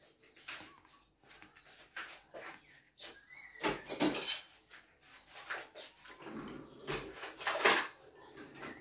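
Scattered light knocks and clicks of a fork or spoon against a plastic plate while a toddler eats, the loudest clusters about four seconds in and again near the end.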